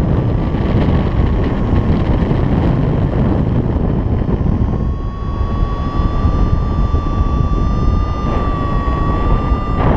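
Loud rush of flight wind over the camera microphone of a paraglider in flight, with a steady high electronic tone and its overtones sounding over it, drifting slightly up in pitch about halfway through.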